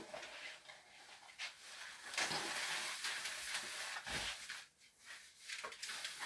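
Packaging rustling and scraping as a bass guitar is pulled out of its box, with scattered knocks and a longer stretch of rustling from about two seconds in to about four and a half.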